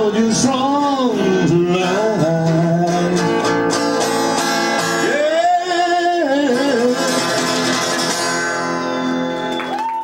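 A man singing with a strummed acoustic guitar, holding a long wavering note about halfway through as the song closes, then the last guitar chord rings on and slowly fades.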